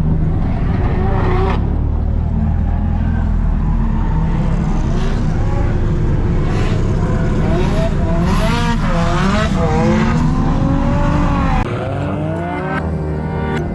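Nissan S13 drift car's engine revving up and down repeatedly through a drift, with tyre noise under it. About two seconds before the end it cuts off abruptly to a quieter sound.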